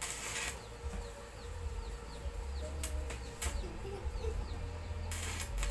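A bird chirping: a run of short, high, falling chirps, a few each second. There are brief bursts of hiss at the start and near the end.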